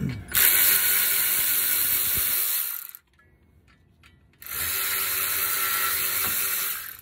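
Cordless electric ratchet spinning a brake caliper bolt in two runs of steady motor whir, each about two and a half seconds long, with a short pause between.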